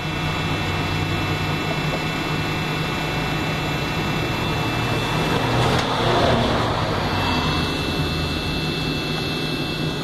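Webasto diesel coolant heater running its cool-down cycle: a steady whir with a low hum and a faint high whine, swelling slightly about six seconds in. The fan runs on after shutdown to clear any unburned fuel before the unit tries to restart.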